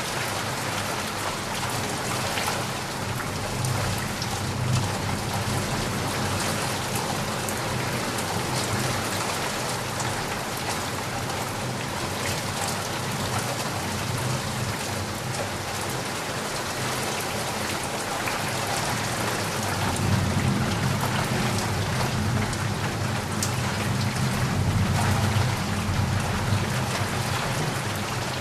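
Heavy rain falling steadily on a surface, with a low rumble of thunder swelling through the second half.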